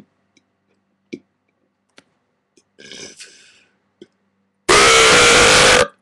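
A man's deliberately forced, very loud burp lasting a little over a second near the end, preceded by a few small mouth noises.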